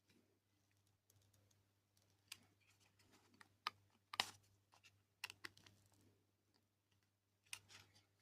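Faint, irregular clicks and taps of small plastic robot-kit parts and tiny screws being handled during hand assembly, the sharpest click a little past four seconds in.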